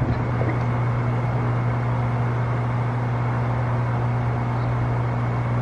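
A steady low hum under an even hiss, with no bangs or pops.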